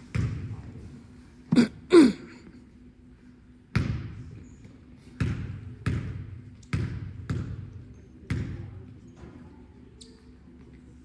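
Basketball bouncing on a hardwood gym floor, each bounce booming through the large hall. There is a single bounce at the start, a second a few seconds later, then a run of bounces about two-thirds of a second apart. About one and a half and two seconds in come two short, loud sounds that drop in pitch, over a faint steady hum.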